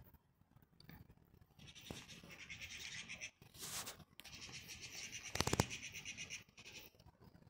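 Domestic cat giving a short, pulsing meow about five seconds in, amid light scuffing and rustling.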